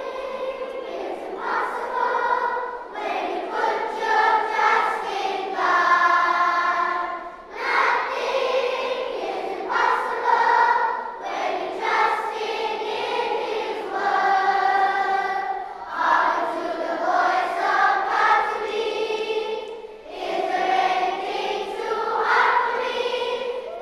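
A large choir of school children singing together in sung phrases of about four seconds, each followed by a short pause.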